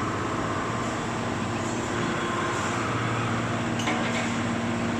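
Steady hum of a 650-ton hydraulic cold forging press and its pump unit running, with a faint knock about four seconds in.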